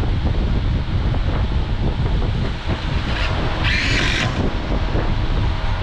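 Steady low rumble of fan-blown air across the microphone. About three and a half seconds in, a cordless drill runs briefly, under a second, driving a screw into a plywood countertop, with a shorter blip just before it.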